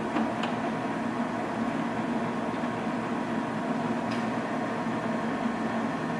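1942 Monarch 16CY engine lathe running, its 7.5 hp motor and gearing giving a steady mechanical hum, with the lead screw engaged to drive the carriage for threading. A few light clicks sound near the start and about four seconds in.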